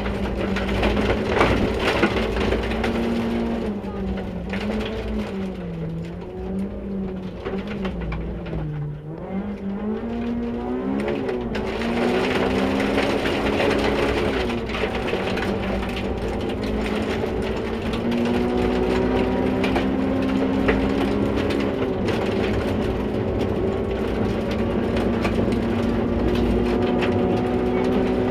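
Rally car engine heard from inside the caged cockpit, its revs rising and falling for the first ten seconds, then climbing in long pulls that drop back between them as it shifts up. Throughout there is a crackle of gravel under the tyres and against the underside.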